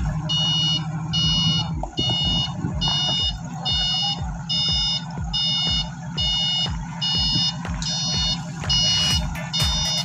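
Forklift reversing alarm beeping at an even pace, a little more than once a second, over the low running of the forklift's engine as it backs away from the container.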